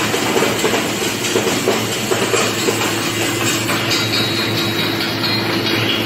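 Horizontal flow-wrap (pillow) packing machine running at about 250 packs a minute: a steady, rapid mechanical clatter over a constant hum.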